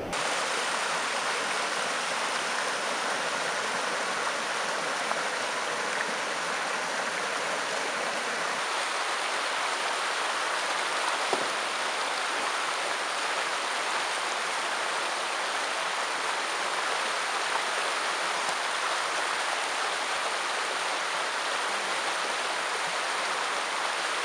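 Creek water flowing steadily, an even rushing hiss with no breaks.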